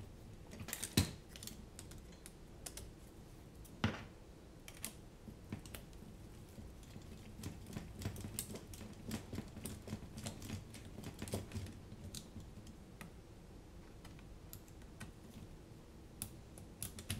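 Small screws being driven into a drone frame with hex drivers: scattered light clicks and taps of tools and frame parts, with two sharper knocks about one and four seconds in.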